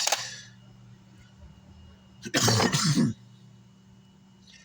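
A man coughing and clearing his throat: a short rough burst at the start and a longer, louder one a little past the middle, over a steady low hum.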